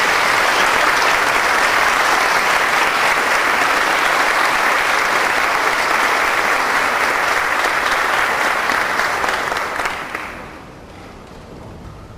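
Audience applauding in a concert hall, steady and loud, then dying away about ten seconds in.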